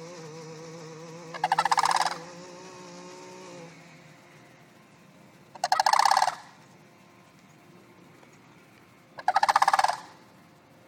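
Sandhill cranes calling: three rolling, rattling calls, each under a second, a few seconds apart.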